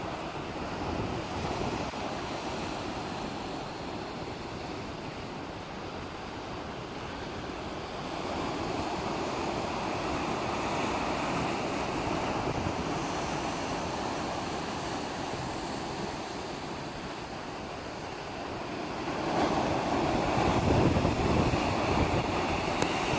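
Sea waves washing onto the shore in a steady wash of surf, with a bigger wave surging in a few seconds before the end.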